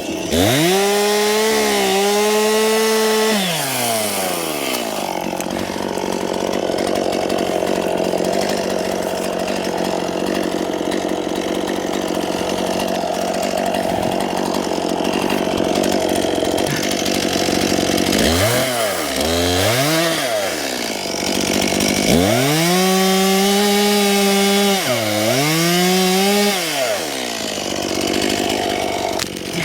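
Two-stroke chainsaw making a felling cut in a dead spruce trunk. It revs up to full throttle just after the start, drops back, runs steadily in the cut, then is blipped twice and held at high revs again before easing off near the end.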